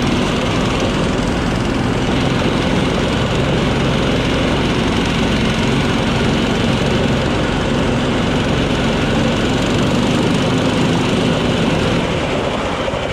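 Snowdog tracked snow machine's small engine running steadily at low speed, with its track, while it tows a rider on its sled.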